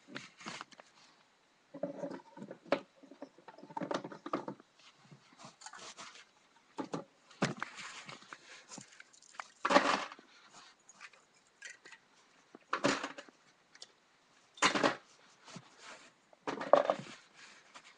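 Irregular knocks, clatters and rustles of things being handled close to the microphone, with a few sharper, louder knocks about ten, thirteen and fifteen seconds in.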